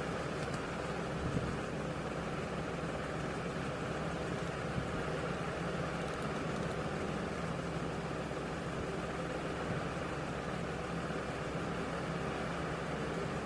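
Steady background hum and hiss of room noise, with a few faint clicks of computer keyboard typing.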